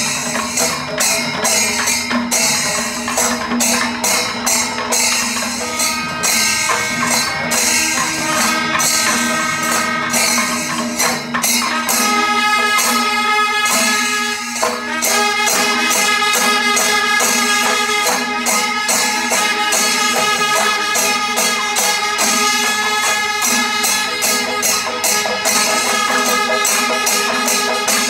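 Panchavadyam temple ensemble: timila and maddalam drums with ilathalam cymbals beating a fast, dense rhythm. About twelve seconds in, the C-shaped brass kombu horns join with loud held notes over the drumming.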